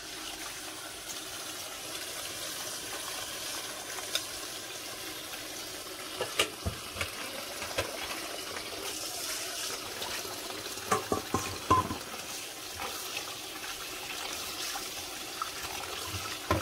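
Kitchen tap running steadily into a stainless steel bowl as small cleaned fish are rinsed by hand, the water coming on suddenly at the start and splashing over the fish. A few sharp clinks and knocks, the loudest a little past the middle.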